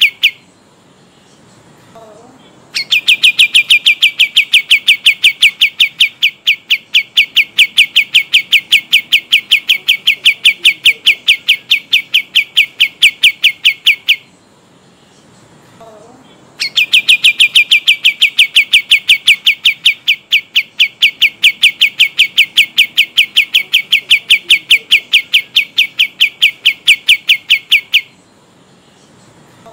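A kapas tembak songbird singing a long, rapid rolling trill of evenly spaced high notes, twice, each trill lasting about eleven seconds with a short pause between.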